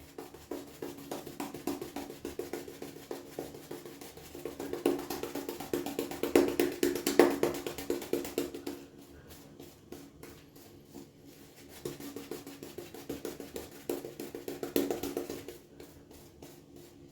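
Shaving brush beaten rapidly against the inside of a lather bowl, a fast rhythmic ticking with the bowl ringing along. The strokes are louder in two spells, from about four to eight seconds in and again near the end. The brush is beating the air bubbles out of the shaving soap lather.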